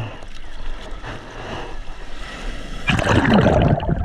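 Sea water splashing and sloshing close to an action camera as a bodyboarder paddles with his arms. About three seconds in the water noise jumps much louder and stays loud.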